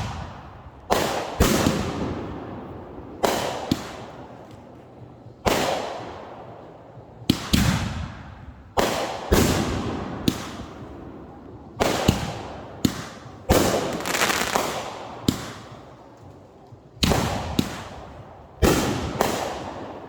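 Fireworks going off in a rapid, uneven series of sharp bangs, one or two a second, each trailing into crackling that fades away.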